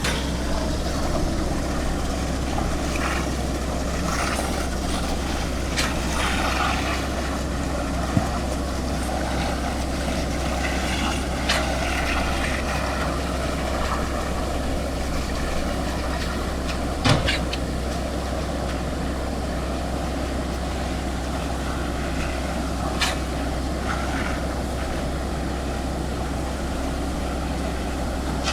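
Concrete mixer trucks and a concrete pump truck running steadily with a low engine drone, a few short knocks or clanks sounding now and then.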